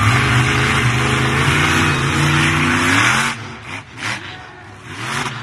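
Car engine revving hard, held high for about three seconds, then dropping away, with a few shorter bursts of revs after it.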